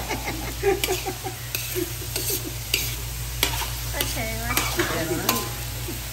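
Metal spatula stirring sliced hot dogs and chicken liver in a large wok over the heat, scraping and clicking irregularly against the pan over a steady frying sizzle.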